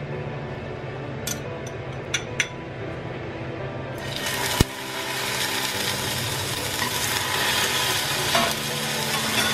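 Pineapple slices dropped into hot oil in a cast iron pan start sizzling suddenly about four seconds in, a steady frying hiss that keeps going. A sharp click of metal tongs on the pan comes just after the sizzle starts, and a few lighter clicks come before it.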